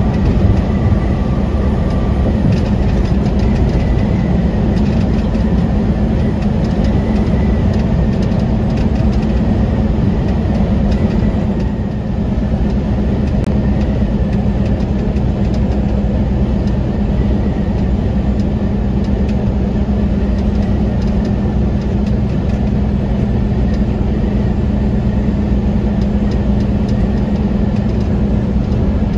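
Semi truck's diesel engine running with a steady low drone.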